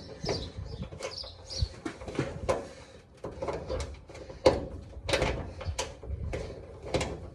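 Irregular metallic clicks and knocks with a few short squeaks: a hand nut riveter being worked to set another rivet nut in a truck hood.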